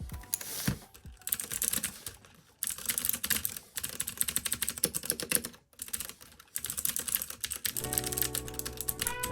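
Fast typing on a Ducky One 2 Mini keyboard with clicky Cherry MX Blue switches: a dense run of keystroke clicks, with short pauses about two and a half and five and a half seconds in.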